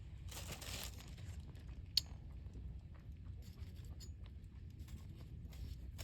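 Wood campfire crackling, with scattered small pops and one sharp, loud pop about two seconds in. A brief hiss comes just after the start.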